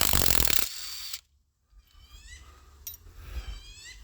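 Power wrench rattling hard as it works a bolt loose on a Chevelle engine, stopping under a second in. Afterwards only faint high chirps.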